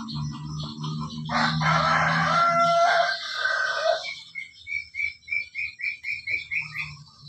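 A loud, drawn-out animal call lasting a little under three seconds, then a quick run of about a dozen high chirps, over a steady low hum.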